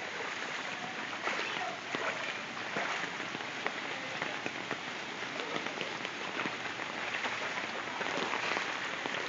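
Heavy rain falling steadily, a dense hiss of countless drops striking water and hard surfaces.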